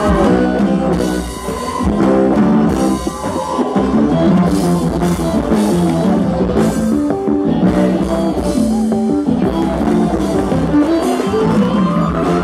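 Live band playing an instrumental passage: drum kit and electric bass under quick stepping melodic runs from keytar, accordion and electric guitar, with a rising glide near the end.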